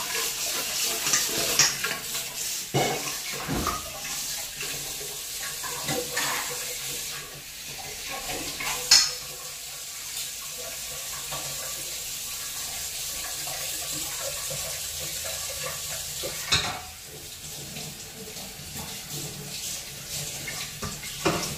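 Kitchen tap running steadily into a steel sink while pots and dishes are washed, with metal utensils clanking against each other every few seconds. The loudest clank comes about nine seconds in.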